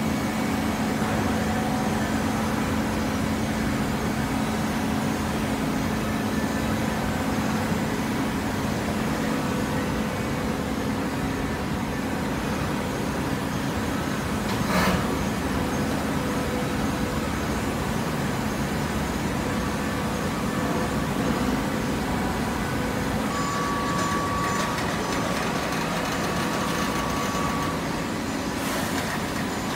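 Industrial machinery running steadily with a low hum, with a brief sharp noise about halfway through.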